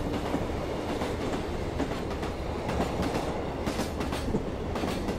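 Vintage passenger train rolling along the track: a steady rumble with occasional clacks as the wheels pass over rail joints.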